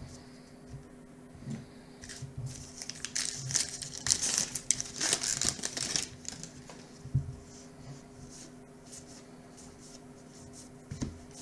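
A baseball card pack's wrapper being torn open and crinkled in the hands, a run of scratchy rustling loudest a few seconds in. It is followed by softer sliding of cards being thumbed through near the end.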